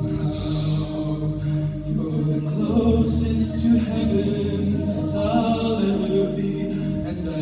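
High school a cappella group singing wordless chords in harmony, with no instruments. The voices hold each chord for a second or two before moving to the next, with short hissing accents above.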